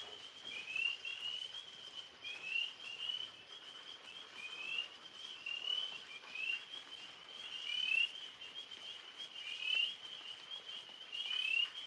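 A chorus of small animals calling: short, high chirps, many of them rising, repeating several times a second and overlapping.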